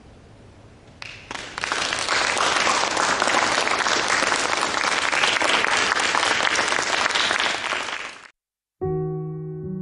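Audience applauding, a dense clatter of many hands that starts about a second in and cuts off abruptly. Near the end, after a brief silence, piano music begins.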